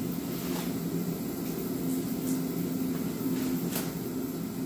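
A box cutter slitting the tape on a cardboard shipping box, a few faint short scrapes and clicks, over a steady low hum.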